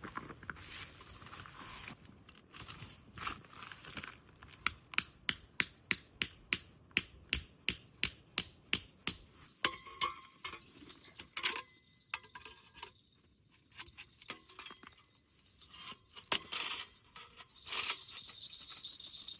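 A quick run of about sixteen sharp metallic strikes, three to four a second, with scattered clinks and scrapes before and after.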